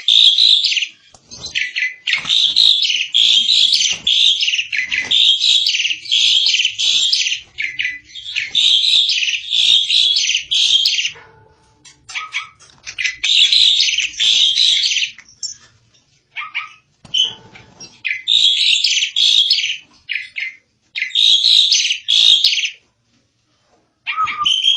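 Asian pied starling (jalak suren) singing: loud bursts of harsh, chattering song repeated phrase after phrase, with a few short pauses between runs.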